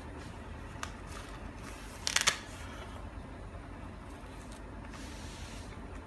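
Handling noise from a plastic flat mop plate and its microfibre pad being fitted together. A light click just under a second in, then a short rattle of sharp plastic clicks about two seconds in, then a faint hiss of cloth rubbing on plastic.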